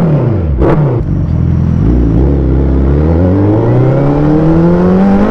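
Suzuki Hayabusa's inline-four through an aftermarket slip-on exhaust: two quick throttle blips that fall away sharply, then the bike pulls away and accelerates, the engine note rising steadily in pitch.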